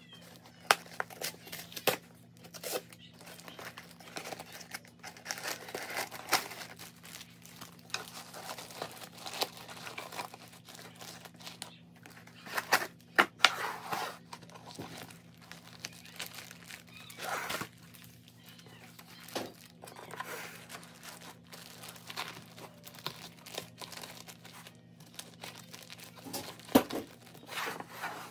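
Plastic zipper storage bags crinkling as they are handled, pulled from their cardboard box and pressed into a wooden bag organizer, with irregular taps and rustles throughout.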